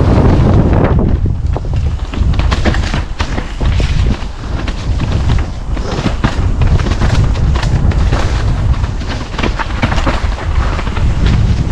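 Wind buffeting the microphone, a heavy rumble that swells and dips, with many irregular crackling clicks over it.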